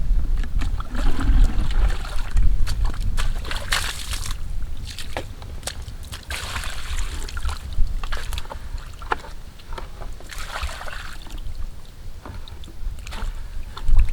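Water sloshing and splashing in irregular bursts, over a steady low rumble of wind on the microphone.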